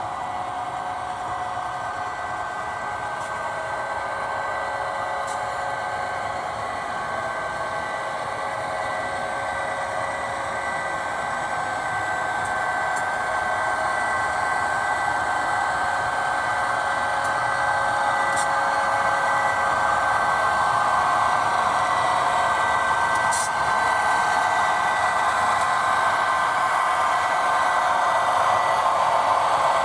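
HO scale model train running on the layout: a steady motor whir with a fixed-pitch whine, slowly growing louder as it comes closer, with a few faint ticks over the track.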